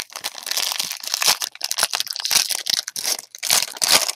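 Foil wrapper of a 2020 Bowman Draft jumbo baseball-card pack crinkling and tearing as it is pulled open by hand. It is a dense, continuous crackle, loudest about two seconds in and again just before the end.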